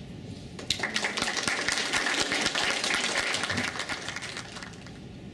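Applause: many hands clapping, starting about a second in and fading out near the end.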